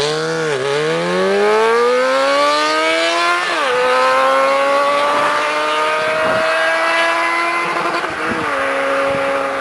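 Yamaha XJ6's 600 cc inline-four engine at high revs under hard acceleration. The pitch climbs, drops sharply at an upshift about three and a half seconds in, then climbs more slowly in the higher gear.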